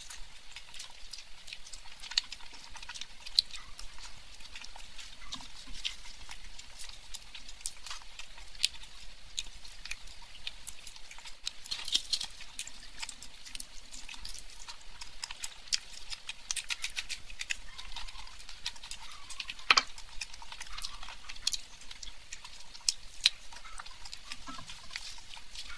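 Close-miked chewing and lip-smacking of mutton curry and luchi: a steady stream of wet, clicky mouth sounds with a few sharper smacks.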